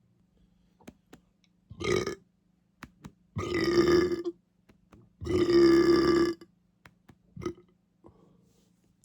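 A person belching: one short burp, then two long drawn-out burps of about a second each, with small clicks between them.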